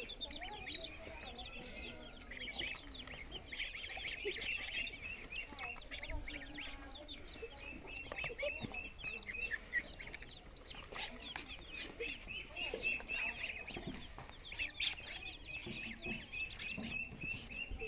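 A brood of chicks and ducklings peeping without pause: many overlapping high-pitched cheeps, with runs of quick evenly spaced peeps, and a few light knocks.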